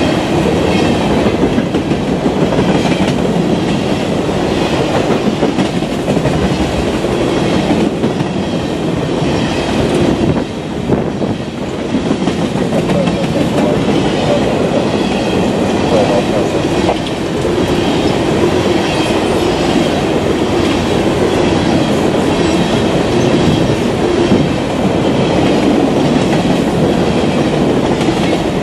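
Empty coal cars of a freight train rolling past: steel wheels running on the rails in a loud, steady rumble, easing briefly about ten seconds in.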